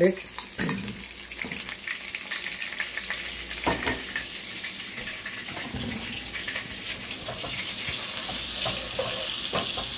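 Chopped garlic sizzling in hot butter and olive oil in a pot: a steady frying hiss with fine crackling that slowly grows louder.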